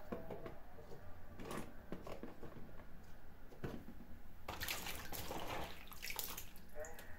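Water splashing and dripping in a bowl as vegetables are handled in it, with a few light knocks; the splashing gets busier for about two seconds from four and a half seconds in.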